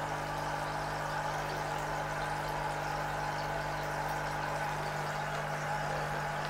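Small mains-powered aquarium air pump humming steadily as it runs, pumping air through a tube to an airstone in the water.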